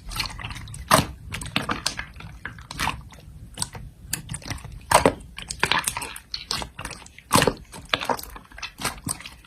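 Slime being squeezed and poked by hand, giving irregular sticky clicks and pops, with louder pops about 1, 5 and 7.5 seconds in.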